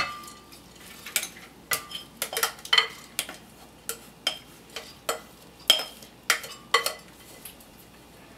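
A dozen or so sharp glass clinks at irregular intervals, about two a second: a glass bowl knocking against a glass blender jar as soaked mung beans and rice are tipped and shaken out of it.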